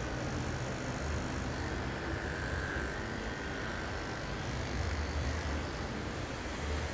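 Corded electric hair clippers running with a steady buzz as they are passed over a close-shaved scalp.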